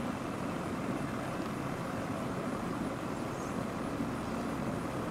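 Steady low background noise with no distinct events, such as distant traffic or machinery might make.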